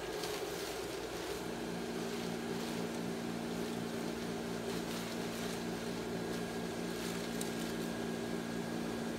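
Blower fans of an inflatable Christmas train running with a steady motor hum as the train fills with air; a second, lower steady tone joins about a second and a half in.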